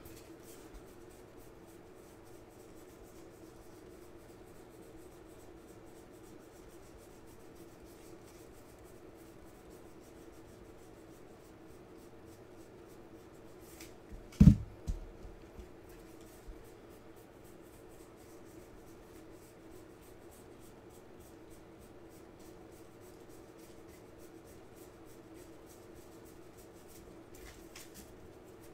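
Trading cards flipped through by hand, faint ticks and rubs of card edges sliding over one another, over a faint steady hum. A single sharp knock about halfway through.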